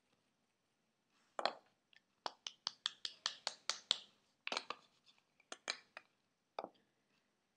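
Sharp taps and clicks from a jar of mineral foundation powder being handled and knocked: a quick run of about seven a second for a couple of seconds, with a few scattered ones before and after.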